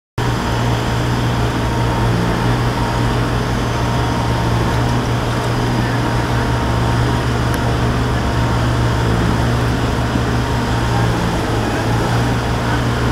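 Steady city street traffic noise with a constant low hum and an even wash of sound; no single passing vehicle or other event stands out.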